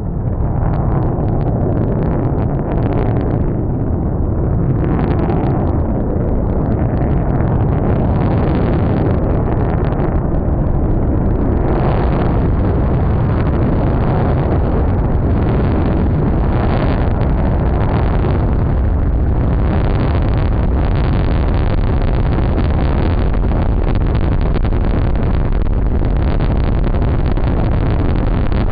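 F-22 Raptor's twin Pratt & Whitney F119 jet engines running loud and steady, a deep rumble with ragged crackle that holds without a break.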